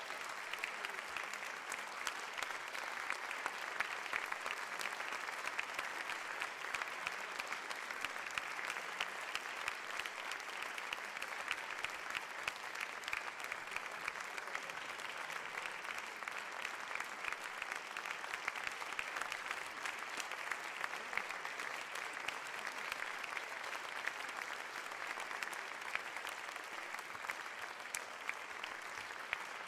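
A crowd applauding steadily: dense, continuous clapping from many hands.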